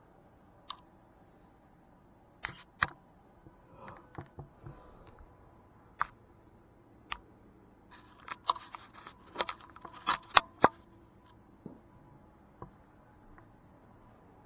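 Scattered sharp clicks and knocks from a handheld video camera being handled as it is carried through rooms, with a busier run of them about eight to eleven seconds in, over a faint steady tone.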